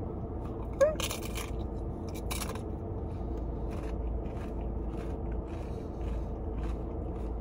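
Close-up chewing of crisp lettuce from a burrito bowl: irregular small crunches, the most distinct about a second in and again between two and three seconds in. A steady low hum of the car cabin runs underneath.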